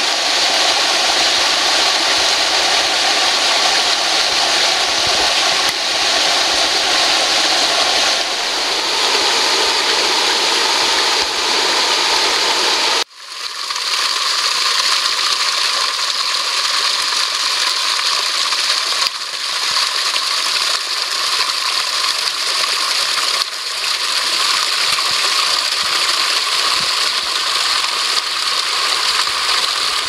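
Small mountain waterfall pouring onto rocks: a steady rush of falling water. About thirteen seconds in it breaks off abruptly and resumes with a thinner, less bassy rush.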